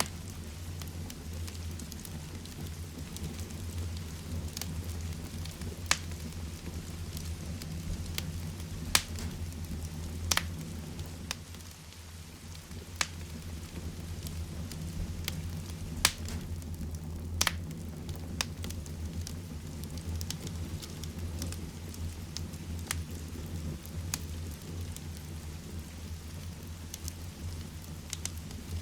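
Heavy rain falling with a wood fire crackling: a steady rush of rain over a deep low rumble, broken by scattered sharp pops from the burning wood.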